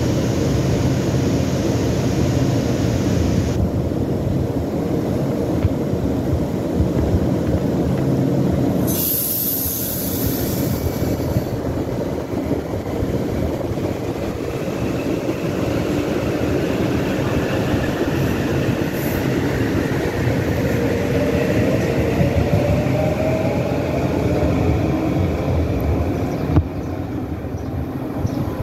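Metro-North M8 electric multiple-unit train running past at close range, a steady rumble of wheels on rail. About nine seconds in comes a brief high hiss, and later a rising whine as the train gathers speed.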